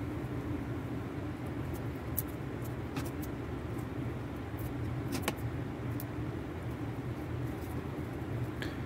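A steady low background hum, with a few light clicks and soft rustles of paper banknotes being handled and pressed down on a tabletop.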